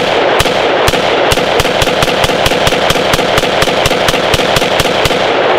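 A 5.56 AR-15 rifle (Standard Manufacturing Model A) firing rapidly and steadily, about four to five shots a second, in one long string.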